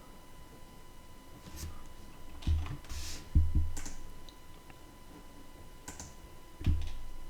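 Scattered clicks of a computer mouse and keyboard, about eight in all, some with a dull knock on the desk beneath them, over a faint steady high-pitched tone.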